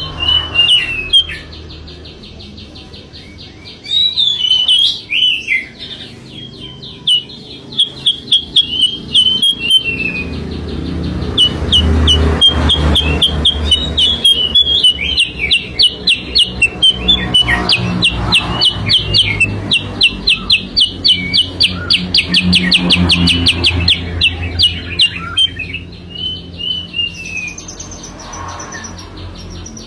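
Kutilang sutra lure song: rapid chirping phrases and long fast trills, with bursts of quick repeated notes. A low rumble rises and falls beneath it.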